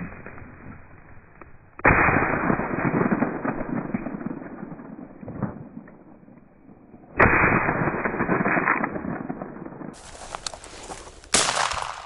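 Two shotgun shots replayed slowed down, deep and drawn out with long rolling echoes, about five seconds apart; then, near the end, a shot at normal speed.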